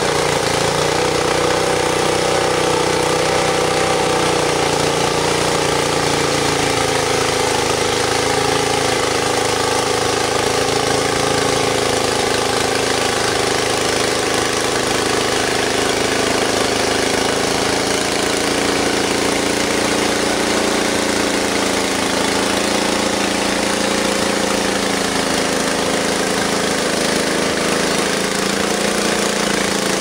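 Frontier OS23 portable bandsaw mill sawing tulip poplar: its engine runs steadily under load while the band blade cuts through the log with a continuous hiss. The engine note eases a little lower partway through the cut.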